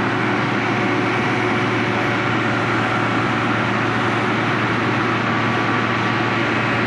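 XCMG XM1003K cold milling machine running with a steady, even noise that does not change.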